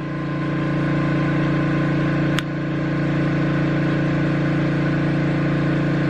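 Electric air compressor running with a steady hum, with one sharp click about two and a half seconds in.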